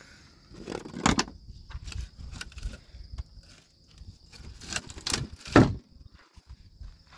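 A series of knocks and rustles of things being handled, the loudest knocks about a second in and again past halfway, over a steady high insect trill.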